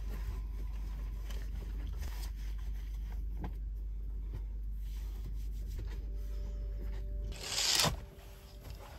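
Small handling sounds, rustling, light scrapes and clicks, as a person moves about and handles things in a campervan's cramped interior, over a steady low hum. Near the end the hum stops and there is one loud, brief swish.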